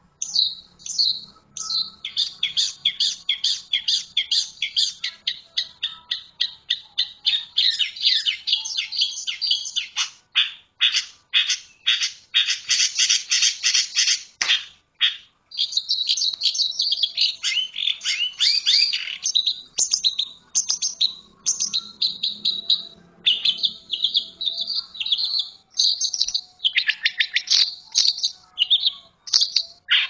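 Long-tailed shrike singing a long, rapid, chattering song of quick, sharp high notes that changes as it goes, with a short pause about halfway through.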